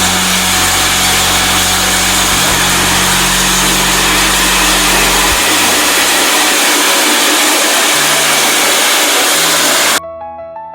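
Compost grinder machine running loudly and steadily. The noise cuts off abruptly near the end, where a light bell-like music melody takes over.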